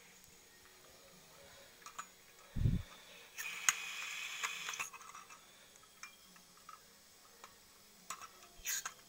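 Blue butane canister being fitted into a portable camping gas stove: a dull bump, then a hiss of gas for about a second and a half as the canister seats, and a few sharp metal clicks near the end.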